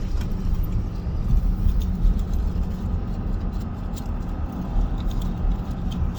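Steady low rumble of a moving car's road and engine noise, with no howling heard.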